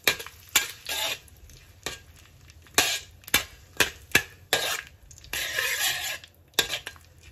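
Metal spatula scraping and tapping against a wok as diced Chinese sausage is stir-fried in hot oil, in about a dozen irregular strokes. A longer hissing sweep comes a little past five seconds.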